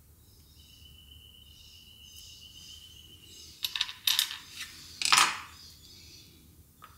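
Small metal-tipped soap-tidying tool clattering onto a wooden board as it is set down: a few light clicks, then one louder clatter.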